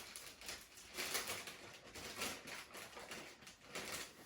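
Faint, irregular scratching and rubbing strokes of hand work on a snowmobile exhaust heat shield, as it is held in place and marked for trimming.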